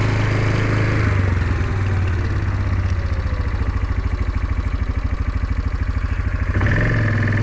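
Engine running steadily at low speed. About halfway through it turns to a rapid, even throb, then smooths out again near the end.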